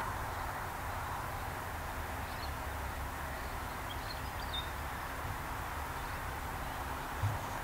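Open-country ambience: a low steady rumble with a few faint bird chirps in the middle, and a brief low thump near the end.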